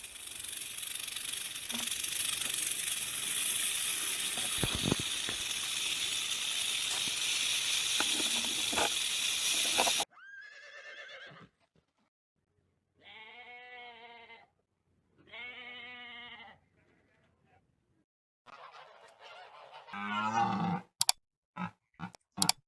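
A steady hissing noise that cuts off abruptly, then three drawn-out farm-animal calls with a wavering pitch, followed by more animal calls and a few sharp clicks near the end.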